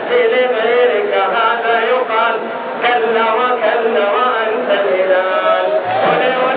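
Football crowd in the stadium stands chanting together, many voices at once without a pause.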